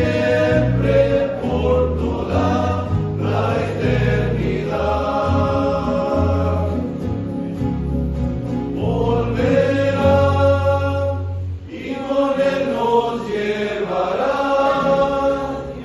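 Young men's choir singing a hymn in Spanish to guitar accompaniment, with low bass notes under the voices. The bass drops out about three-quarters of the way through while the singing carries on.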